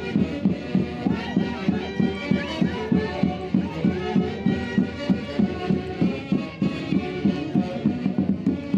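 Live Andean festival band music: reedy wind instruments playing over a steady, even beat.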